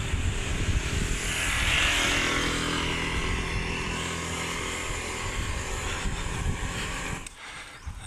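A motorcycle engine running steadily on the move, with wind rushing over the microphone. It drops away abruptly a little before the end.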